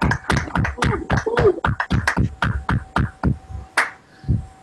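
Scattered hand clapping from several people at once, heard through a video call as participants unmute their microphones. The claps are irregular and overlapping, then thin out and stop about four seconds in.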